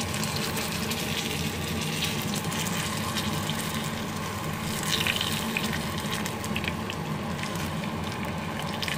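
Battered banana fritters frying in shallow oil in a pan: a steady sizzle with fine crackles, a little louder about five seconds in, over a steady low hum.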